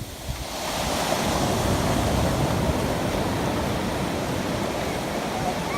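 Ocean surf washing onto the beach, a steady rushing noise that swells about half a second in.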